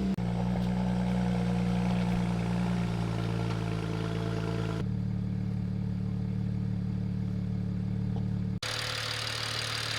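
BMW 335i's N54 twin-turbo inline-six idling steadily just after starting, with its tone shifting abruptly twice, about five and eight and a half seconds in.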